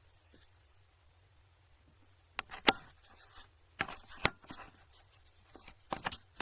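Several separate sharp knocks and clicks of hard objects being handled and set down, starting about two and a half seconds in after a quiet spell; the loudest comes just after they begin.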